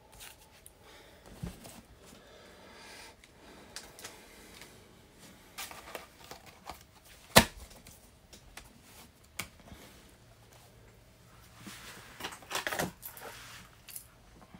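Scattered clicks and rustles of plastic card sleeves and rigid top loaders being handled, with one sharp click a little past halfway and a flurry of rustling near the end.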